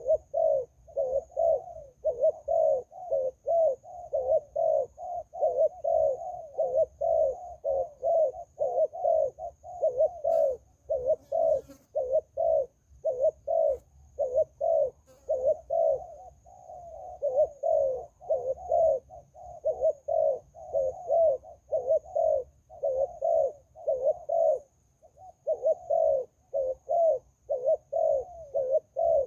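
Zebra doves cooing continuously in quick, rippling repeated phrases. The coos follow one another almost without a break.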